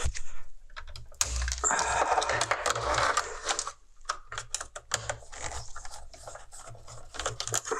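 Clicks and scraping of hand tools against the plastic and metal parts of a car heater being taken apart, with a longer spell of scraping from about a second and a half in.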